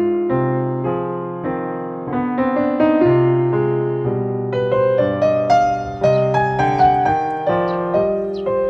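Background piano music: a slow run of held notes and chords, changing about once a second.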